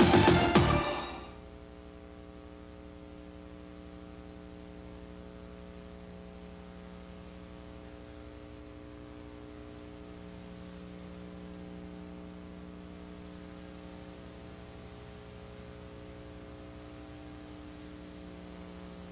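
Closing music ends about a second in, leaving a steady electrical mains hum of several even tones with a faint hiss.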